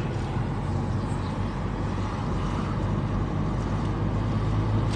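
Steady engine and road noise of a car driving along.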